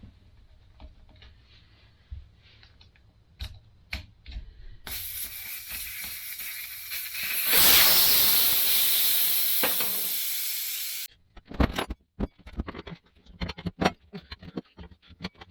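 Air hissing out of a motorcycle tire as it is let down to break the bead. The hiss starts about five seconds in, gets louder, eases off slowly and cuts off suddenly. Light clicks and knocks of tools come before and after it.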